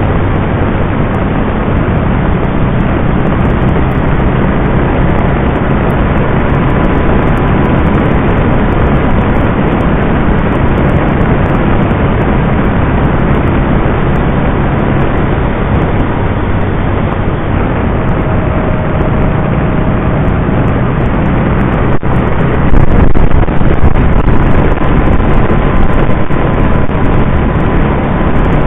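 Can-Am Spyder RT three-wheeled motorcycle riding along at road speed: a steady low engine drone under a loud rushing noise, which grows louder for the last several seconds.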